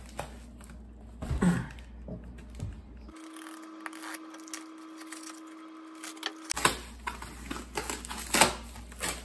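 A cardboard shipping box being handled and set down with a knock, then its packing tape slit with a knife and torn open in a series of sharp crackles and rips.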